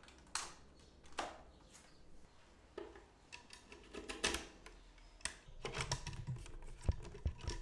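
Hands handling a corded jigsaw, its power cord and its under-table aluminium mount: scattered light clicks and taps, with two duller knocks near the end.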